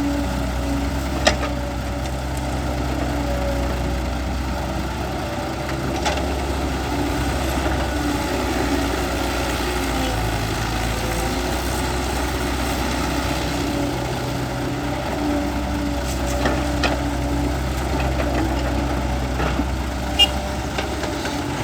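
Heavy diesel engine running steadily with slight changes in pitch, with a few sharp knocks or clanks: about a second in, about six seconds in, and near the end.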